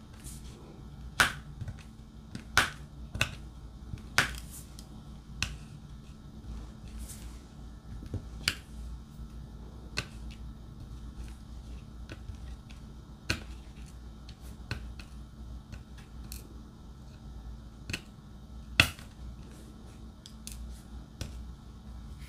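Diamond painting drill pen tapping drills down onto the canvas, about a dozen sharp, irregularly spaced clicks, the loudest near the end.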